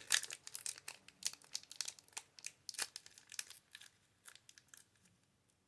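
Foil wrapper of a Pokémon booster pack crinkling and tearing as it is opened, a quick run of crackles that dies away about four seconds in.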